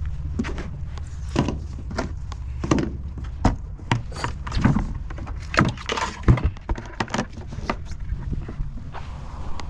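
Irregular knocks, clicks and thuds of a cooler and crabbing gear being handled, most frequent in the middle, over a steady low rumble.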